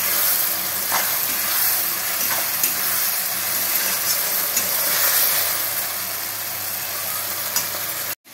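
Onion, green chilli and garlic paste sizzling in hot oil in a pan while it is stirred, with a faint scrape or tap of the utensil every second or so; it is being fried until the raw garlic smell goes. The sound cuts out abruptly just before the end.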